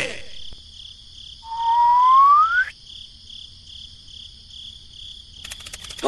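Cricket-like chirping, a high pulse repeating about two to three times a second, under a cartoon-style rising whistle that lasts over a second and cuts off abruptly about two and a half seconds in. A few short clicks come near the end.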